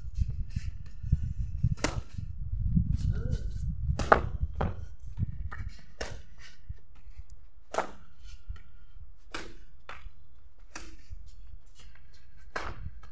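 Badminton rackets striking a shuttlecock back and forth in a rally: sharp single hits about every one and a half to two seconds. Low wind rumble on the microphone, heaviest in the first few seconds.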